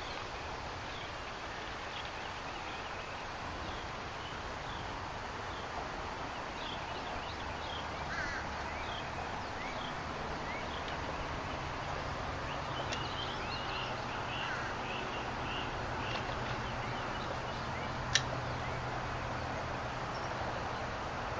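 Outdoor waterside ambience: a steady hiss with many short, scattered bird chirps. A low hum comes in about halfway through, and there is one sharp click near the end.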